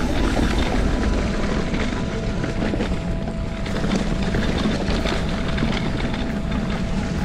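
Wind buffeting the microphone over a steady low rumble while riding off-road.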